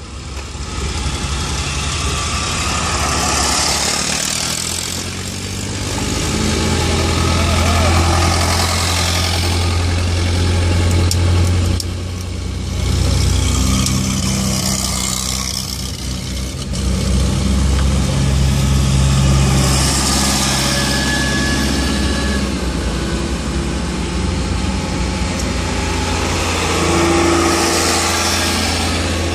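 Vintage tractor engines chugging past one after another, each swelling louder and fading as it goes by, over a steady low engine drone.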